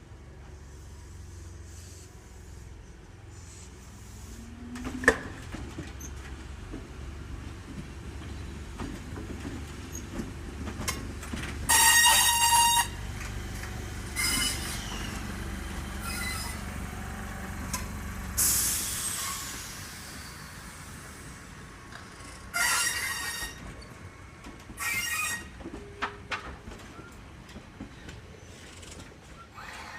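Enshu Railway 1000-series electric train, four-car set 1001F, moving slowly through a depot yard: a low rumble for the first twenty seconds or so, a sharp click about five seconds in, and loud high-pitched wheel squeals about twelve seconds in and again later, with the last ones near twenty-three and twenty-five seconds.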